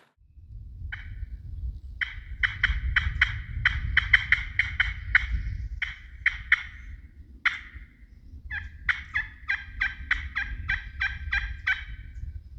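A hand-operated turkey call sounding a long run of short, sharp hen yelps, about four notes a second, in two strings with a short pause midway. It is being used to get a gobbling tom to answer.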